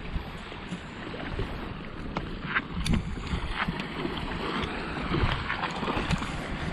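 Wind rumbling and buffeting the microphone, with a few sharp clicks scattered through it.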